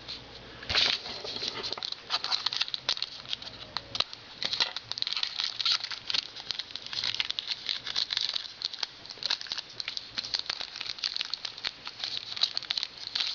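Wrapper of a 2011-12 Panini Certified hockey card pack crinkling, rustling and tearing as it is worked open by hand. The pack is hard to open, and there are many small irregular ticks and crackles.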